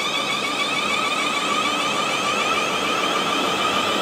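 Class 444 electric multiple unit moving through the station, with a steady high whine from its traction equipment over the rolling noise of its wheels on the rails.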